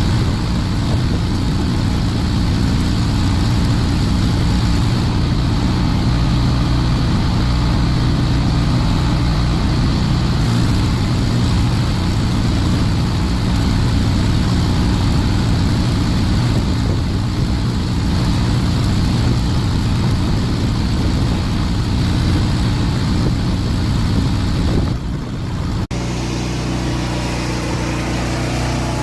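An engine running steadily at idle, with an even hiss over it. About 25 seconds in the sound dips, and a steady engine hum at a different pitch carries on.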